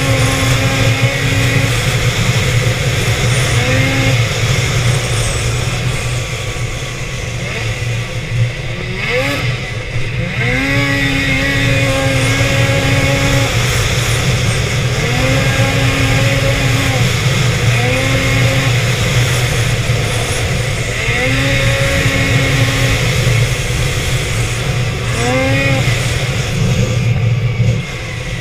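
Two-stroke snowmobile engine heard from the sled, rising in pitch as the throttle opens, holding at speed, then dropping as it eases off, about eight times over, above a steady low rush.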